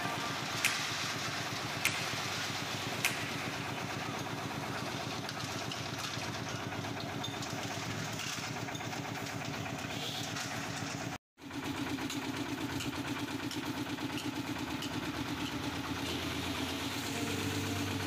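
Portable concrete mixer running steadily with a fast, even chugging pulse as its drum turns, with a few sharp knocks in the first three seconds. The sound cuts out briefly about eleven seconds in, then carries on a little louder.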